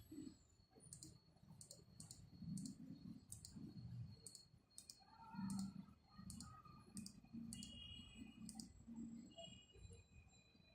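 A series of light, sharp clicks, roughly two a second at an uneven pace, quiet over faint low background noise.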